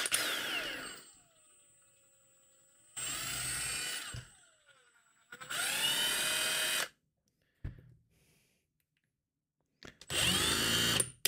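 Milwaukee Fuel cordless impact driver given short trigger pulls with nothing in the chuck, test-running after reassembly. The motor winds down in the first second, then starts three more times, at about 3, 5.5 and 10 seconds. Each time it spins up with a rising whine, runs briefly and winds down, with a short click between the second and third runs.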